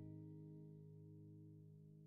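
Faint background music: held guitar-like notes slowly dying away.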